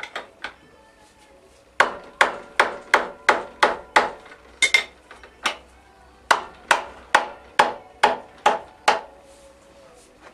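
Repeated sharp blows on a wrench to shock loose a tight motorcycle rear axle nut torqued to 100 Nm, each with a short metallic ring. There are a couple of strikes at the start, a pause, then a steady run of about two to three strikes a second.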